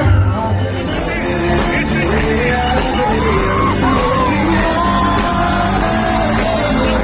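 Live concert music over a large sound system: a singer's gliding, held vocal line over band accompaniment, with the crowd yelling.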